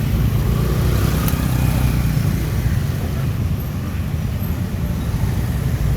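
Road traffic: motor vehicle engines running with a steady low rumble.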